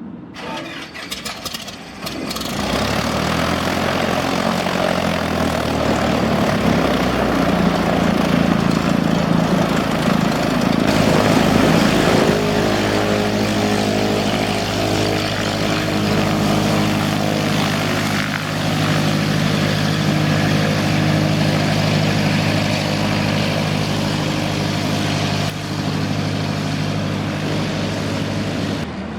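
Propeller airplane engine running loud and close, coming up sharply about two seconds in and then holding a steady, even drone.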